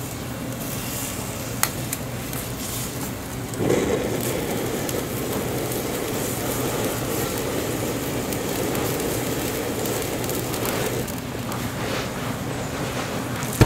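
Broth of instant ramyeon noodles at a hard rolling boil in a small metal pot over a gas burner: a steady bubbling, with the burner's flame rushing beneath it. It grows louder about three and a half seconds in and eases a little near the end.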